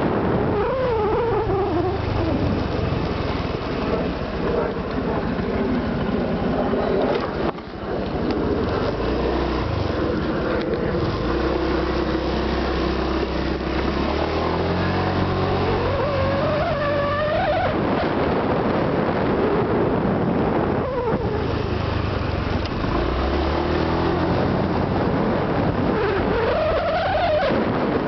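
Honda Vario 125 PGM-FI scooter's single-cylinder engine running on the move, fitted with a larger stainless steel muffler neck; its pitch rises and falls several times with the throttle, about once in the first two seconds, again around the middle and near the end. Heard as a check for the engine's known 'snore' noise.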